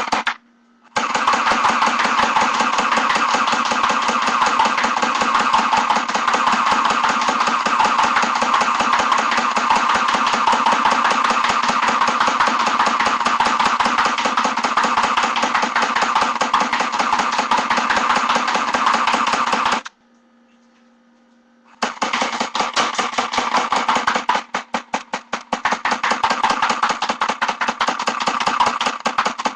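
Airsoft AUG rifle firing on full auto: one very long burst of rapid shots that stops about twenty seconds in, then more firing in bursts after a pause of about two seconds.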